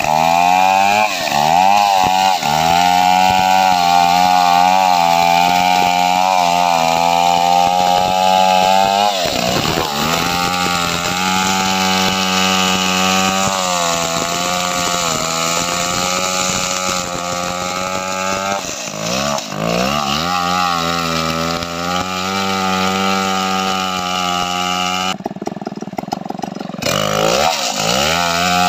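Large Stihl chainsaw cutting into a thick log at high throttle, its engine note sagging under load and picking back up several times.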